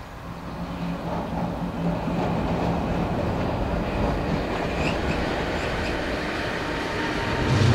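ÖBB Siemens Vectron electric locomotive running light past, its wheels rumbling on the rails over a steady low hum from its traction equipment. The sound grows louder about a second in and again near the end as it draws closer.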